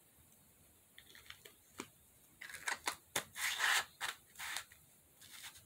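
Handling noises: a few light clicks, then a run of short scratchy rustling bursts as small plastic cosmetic jars and packaging are handled.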